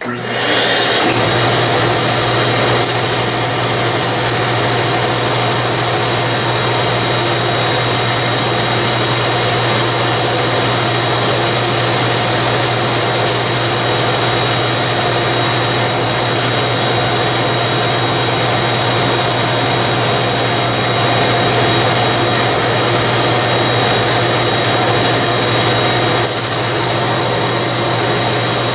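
A shop vac switches on abruptly and runs loud and steady with a high whine. The homemade drum sander's electric motor and sanding drum run with it while a board is fed under the drum.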